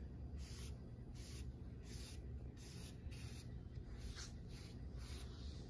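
Foam brush stroking sanding sealer along a wooden board: soft, repeated swishing rubs, about two a second.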